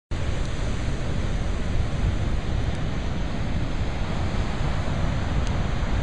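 Ocean surf with wind buffeting the microphone: a steady rushing noise that cuts in abruptly.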